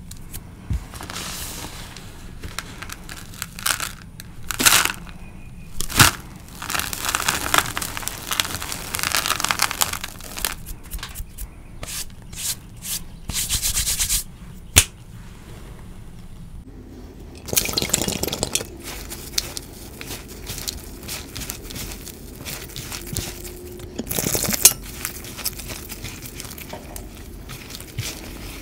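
A hand pressing, patting and raking through a tray of dry crushed chalk crumbs (cornstarch and calcium carbonate reform with gym chalk and bits of dried rose and leaf), giving irregular crunching and crackling with sharp snaps.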